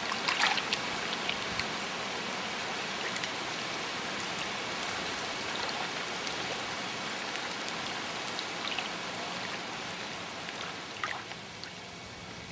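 Steady wash of water noise, with a few brief splashing ticks in the first second and again about eleven seconds in.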